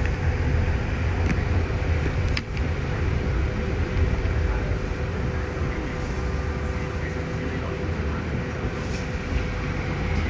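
Moving city bus heard from inside the cabin: steady low engine rumble and road noise, with a faint steady whine. A single sharp click about two and a half seconds in.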